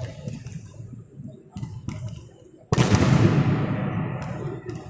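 Quiet sports-hall ambience with a few faint knocks, then, a little past halfway, a sudden loud bang that rings around the large hall and dies away slowly under a low crowd murmur.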